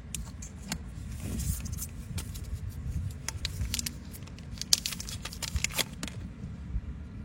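Scattered clicks and light taps from small hard objects being handled, over a low steady rumble, with two sharper clicks near the end.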